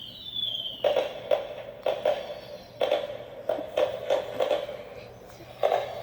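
Small speaker of a Disney castle toy playing recorded fireworks sounds. A falling whistle ends about a second in, followed by a string of sudden bangs, one or two a second.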